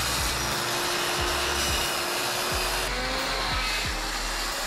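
Handheld electric power saw running and cutting through an OSB sheet, under background music with a steady beat.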